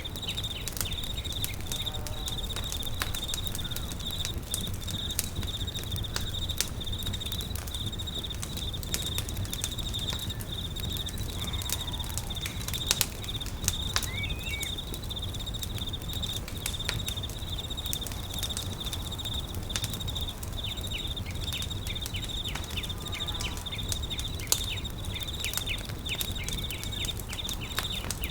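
Campfire crackling with frequent sharp pops over a low rumble, while an insect trills steadily with a high, pulsing note. A short bird chirp comes about halfway.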